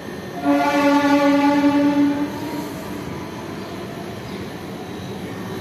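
A horn blast, a chord of several tones held for just under two seconds, over a steady hum.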